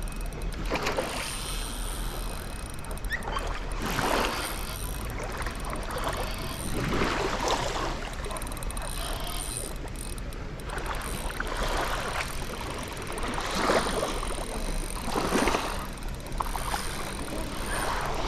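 Shallow water swishing and sloshing around legs wading through it, in irregular strokes every couple of seconds.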